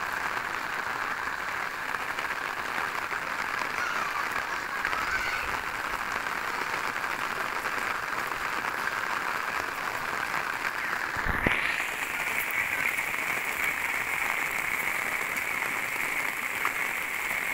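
Rain falling steadily on an umbrella, an even hiss, with a single brief low thump about eleven seconds in.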